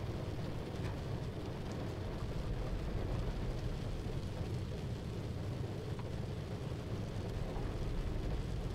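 Steady rain ambience with a low rumble underneath, even in level throughout.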